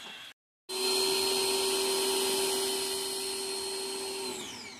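Pressure washer motor running with a steady whine, then shutting off near the end and winding down, its pitch sliding down as it slows. It starts abruptly under a second in.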